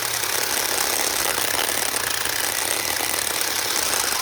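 Electric mini chainsaw running steadily as it saws into a small branch, barely cutting. Its motor won't spin up fast enough and is smoking, the fault the owner has had since the saw started running badly.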